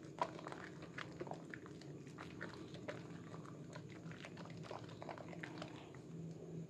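Hands squeezing and rubbing a wet bar of Sehat red soap in thick lather over a basin of sudsy water. The lather squelches and crackles in quick, irregular wet clicks.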